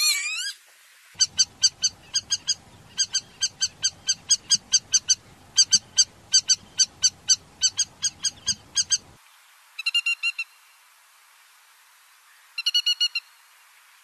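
Lapwing calls. A Northern Lapwing gives one wheezy, sweeping call right at the start. Then a River Lapwing gives a long series of sharp, clipped notes, about four a second in runs, for some eight seconds. Near the end come two short bursts of rapid notes.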